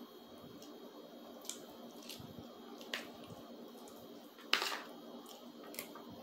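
Faint close-miked eating: wet chewing of soft rice, beans and pasta with ground beef, broken by a few short sharp clicks and smacks of mouth and utensil, the loudest about four and a half seconds in.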